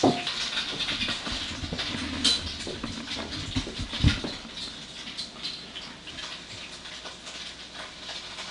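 A drinking glass pressed down through rolled donut dough to cut rounds, knocking on the countertop beneath, with light scraping and rustling of dough and flour; the loudest knock comes about four seconds in. Then a salt-shaker lid is worked into the rounds to cut the holes.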